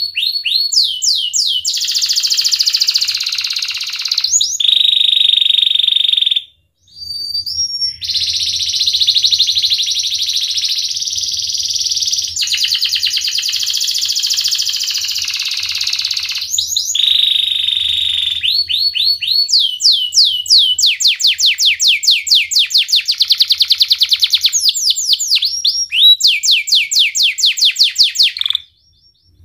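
Domestic canary singing a long, almost unbroken song of fast trills and rapidly repeated sweeping high notes, mixed with held whistled notes. The song stops briefly about a quarter of the way in and again near the end.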